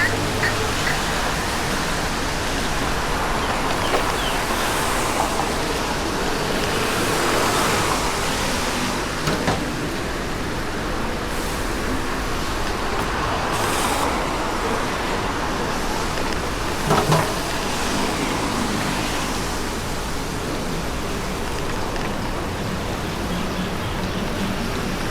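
Steady road traffic noise on wet roads, with vehicles passing. A couple of short knocks stand out, one near the middle and one about two-thirds through.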